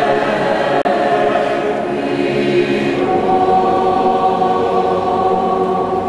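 Mixed youth choir singing held chords inside a stone cathedral, moving to a new chord about halfway through. The sound drops out for an instant just under a second in.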